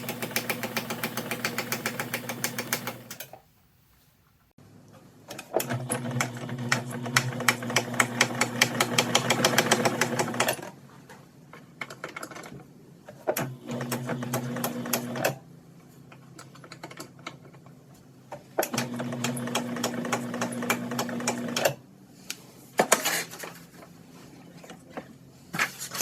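Bernina 801 Matic Electronic sewing machine stitching in several bursts, its motor humming and the needle clicking rapidly and evenly, with pauses between the runs. Near the end come a few sharp single clicks.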